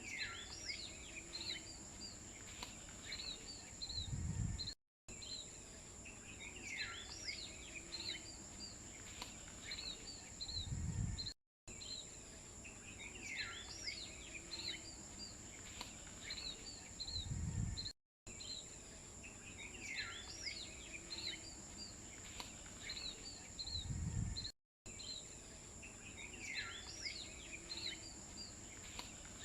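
Looped nature ambience: birds chirping over a steady high whine, with a low rumble near the end of each pass. The same few seconds repeat about every six and a half seconds, with a brief dropout to silence between repeats.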